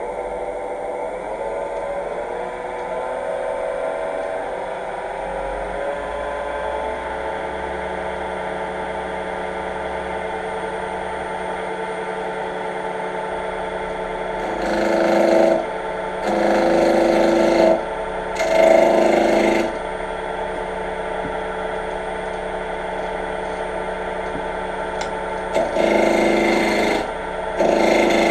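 Wood lathe motor running up to speed with a steady whine that rises in pitch over the first few seconds, spinning a square pine blank. From about halfway, five rough scraping passes, each a second or two long, as a dull roughing gouge knocks down the spinning corners without cutting cleanly.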